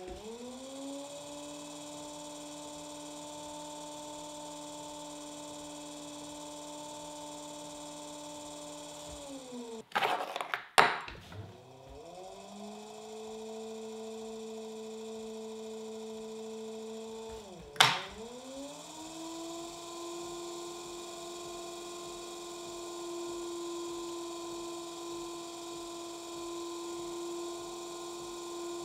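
Electric pottery wheel motor humming steadily, its pitch sliding to a new level a few times as the wheel's speed changes. Sharp clicks about ten seconds in and again at about eighteen seconds are the loudest sounds.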